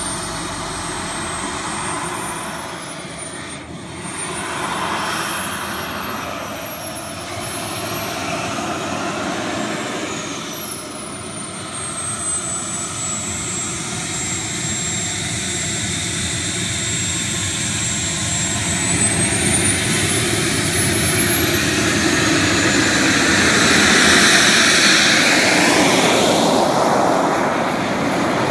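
Small jet turbine of a radio-controlled Lockheed F-104 Starfighter scale model running while it taxies, with a high whine that rises and falls as the throttle changes. It grows louder in the last third, loudest a few seconds before the end.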